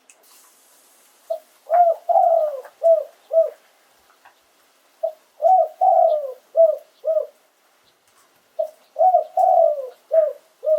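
Spotted dove cooing its song three times, each phrase a run of about five short, low coos with one longer drawn-out note in the middle, repeated every three to four seconds.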